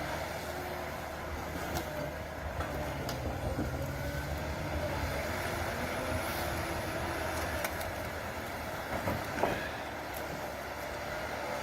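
HSM 904 forestry forwarder's diesel engine running steadily, with a wavering whine and a few sharp clicks or knocks as it works.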